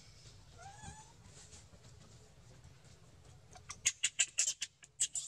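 Young macaque giving a quick run of short, high squeaks, about six a second, near the end. Earlier, about a second in, there is a faint short call that rises and falls.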